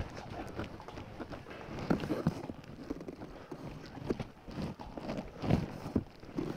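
Irregular footsteps on a bare concrete floor, loudest about two seconds in and again about five and a half seconds in.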